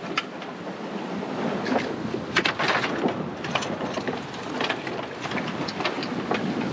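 Wind buffeting the microphone over the rush of water along a sailboat's hull while under sail in rough seas, with many short crackles and knocks scattered through it.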